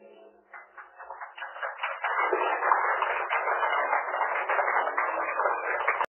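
Audience applauding, building up over the first two seconds, then holding steady until it cuts off abruptly.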